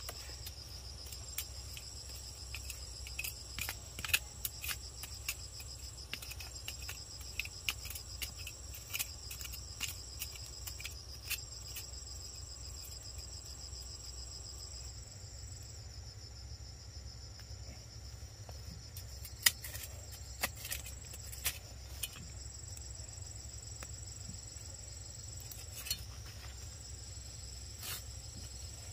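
Insects trilling steadily at a high pitch, with scattered sharp clicks and knocks from a small hand tool digging into soil.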